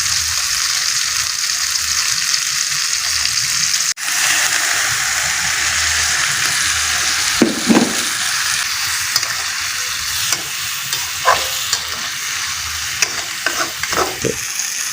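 Food sizzling in oil in a frying pan, a steady hiss that cuts out for an instant about four seconds in. From about halfway, a spatula knocks and scrapes against the pan several times as the food is stirred.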